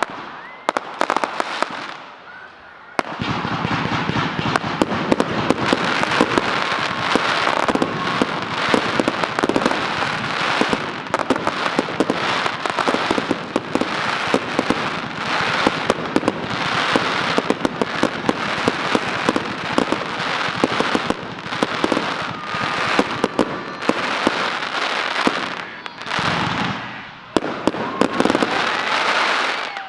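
Aerial fireworks bursting and crackling in a dense, rapid barrage of pops and bangs. There is a short lull about two seconds in and another near the end.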